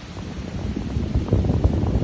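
Wind buffeting the microphone: a low, gusty rumble that dips briefly, then builds again about a second in.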